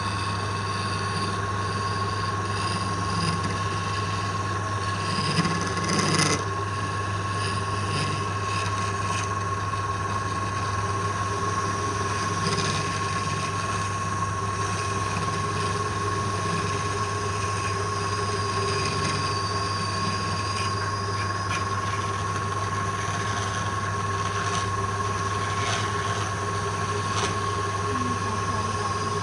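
Wood lathe running steadily with a constant hum and a steady high whine, with a brief louder scrape about six seconds in.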